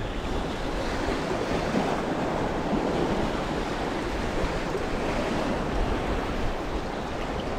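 Steady rushing noise of sea surf on the shore, mixed with wind on the microphone.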